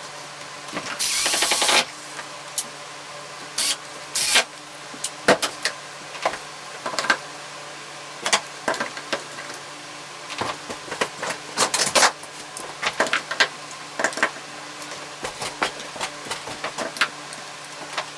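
Clamps being handled and hung on a wooden wall rack: many scattered clicks, clacks and knocks, irregular and of varying loudness, with a short louder rush of noise about a second in.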